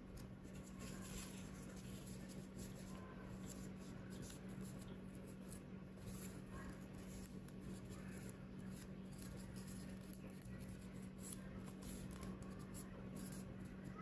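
Faint rustling and crinkling of origami paper as fingers fold and pinch it into shape, over a steady low hum.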